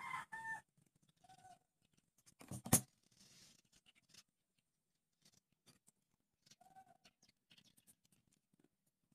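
Faint clicks and rustles of fingers handling popsicle sticks and an elastic band, with one sharp click, the loudest sound, about two and a half seconds in. A few short chirps are heard at the start, about a second and a half in, and again near seven seconds.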